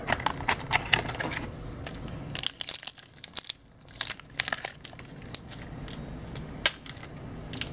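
Foil wrapper of a hockey card pack crinkling as it is handled, in a run of short, irregular crackles.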